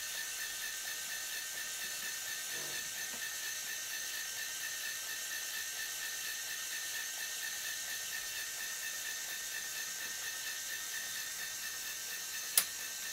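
LEGO Power Functions motor running steadily with a high whir, driving the gear train that slowly turns the cab of the LEGO Technic 42054 Claas Xerion tractor; it turns slowly because the batteries are not fresh. A sharp click about a second before the end as the motor's lever switch is flipped.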